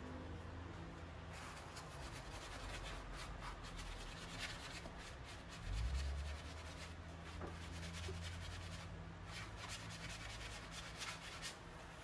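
A white cleaning sponge with toothpaste scrubbing back and forth over textured silk wallpaper, working at a stain with a soft, scratchy rubbing. A steady low hum runs underneath, and there is a dull bump about six seconds in.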